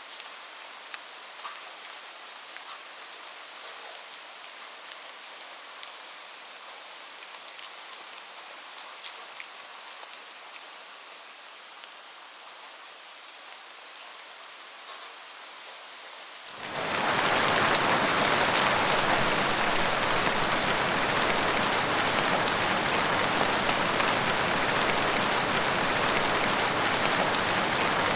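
Light rain with separate drops pattering and ticking, then, about two-thirds of the way through, an abrupt switch to heavy, dense, steady rain that is much louder.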